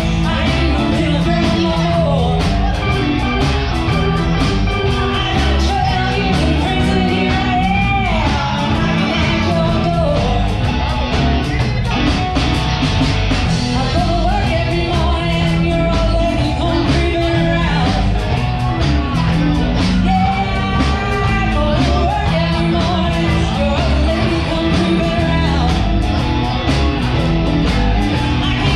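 Live blues band playing: a woman singing over electric guitar, bass, keyboard and drums, with a steady beat.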